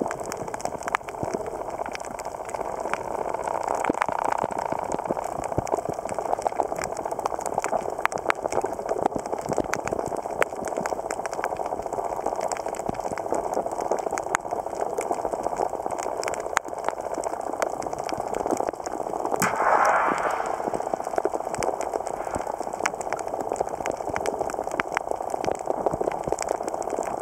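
Underwater sound on a coral reef: a steady dense crackle of tiny clicks over a muffled hiss, the crackle typical of snapping shrimp. About twenty seconds in, a louder rushing swell lasts about a second.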